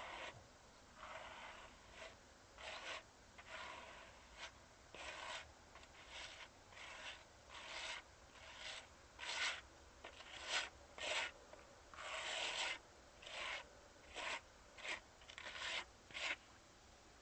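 Repeated rough scraping or rubbing strokes, like a hand tool worked against a gritty surface. The strokes come unevenly, about one or two a second.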